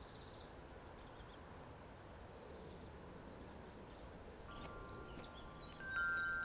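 Faint outdoor background noise. About four seconds in, a tubular wind chime starts to ring: several long, overlapping metallic tones that grow louder near the end.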